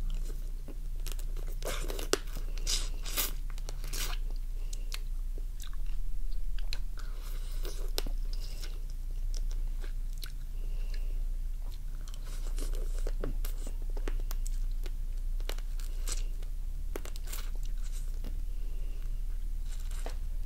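Close-up eating sounds of raw crab: irregular crisp cracks as the shell of a crab leg is bitten open, between chewing of the meat.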